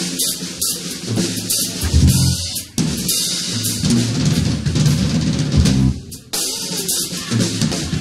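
Live band playing an instrumental stretch: a drum kit with cymbals driving a groove over electric bass, with a couple of brief breaks.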